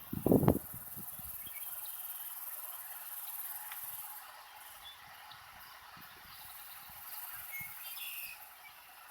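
Steady high insect chirring with a few short bird chirps near the end, and a brief cluster of low thumps right at the start.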